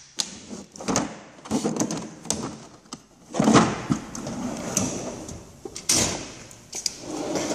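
Snap-on tool box drawers sliding open and shut, with several sharp knocks as they close.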